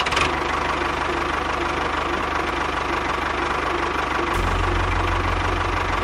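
Tractor engine running steadily, its low rumble getting louder about four seconds in.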